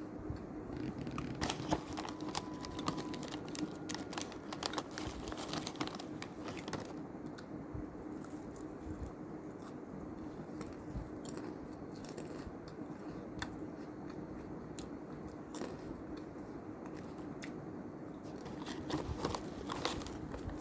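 Mr Twist snack packet crinkling and the crisp snack being bitten and crunched, with sharp crackles coming in clusters, heaviest early on and again near the end. A faint steady hum runs underneath.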